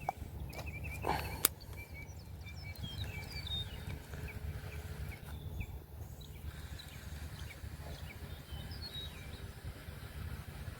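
Birds chirping in the background over a steady low rumble, with a couple of sharp clicks about a second in.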